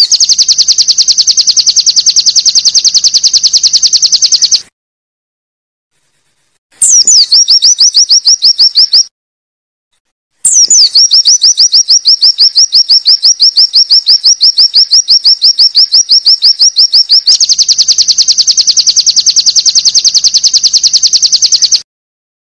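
White-eye (pleci) singing long runs of rapid, evenly repeated high 'wit wit' notes, each run opening with a higher note that slides down. Three runs with silent gaps of one to two seconds between them, the last run about eleven seconds long.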